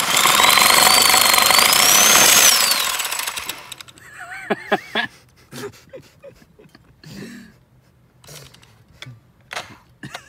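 Cordless reciprocating saw cutting through a steel exhaust pipe with a blade not meant for metal: a harsh rasping with a high squeal that rises in pitch, for about three seconds before it winds down. Scattered knocks and rattles follow.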